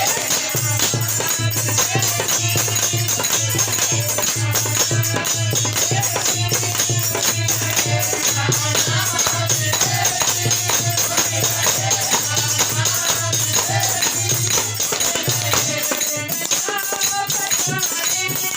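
Devotional bhajan music: a voice carrying a wavering melody over a steady drum beat of about two strokes a second, with jingling hand percussion throughout. The drum beat drops out near the end.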